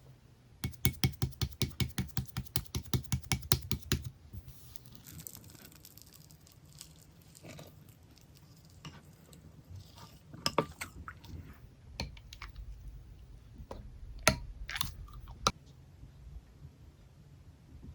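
Kitchen handling sounds: a quick, even run of clicking strokes, about eight a second, for some three seconds. Scattered clicks and knocks follow, with a few sharp knocks near the end.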